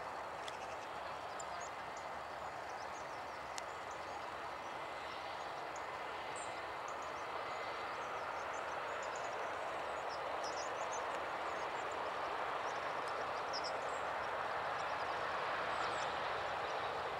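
Airbus A330-243's Rolls-Royce Trent 700 jet engines on approach power as the airliner flares to land: a steady rushing jet noise that grows slowly louder as it passes, with small birds chirping faintly.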